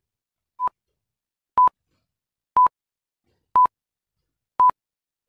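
Countdown timer beeping: five short beeps of one steady tone, one a second, counting down the seconds given to answer a quiz question. The first beep is a little quieter than the rest.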